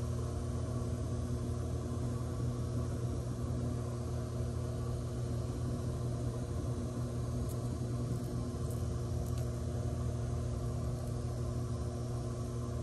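A steady low machine hum at a constant pitch, with a few faint light clicks around the middle.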